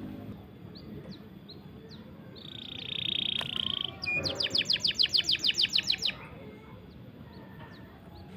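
Small songbird singing: scattered short, high rising chirps, a held high note about two and a half seconds in, then a loud, fast rolling trill of about fourteen notes lasting some two seconds.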